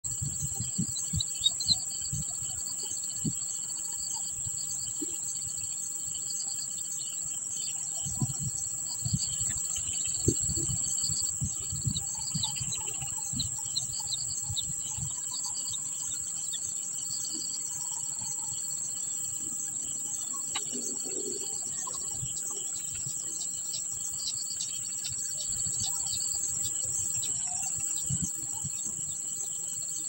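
Steady, high-pitched drone of insects, with scattered faint bird chirps and a few low bumps, the strongest about a second and a half in and around ten seconds in.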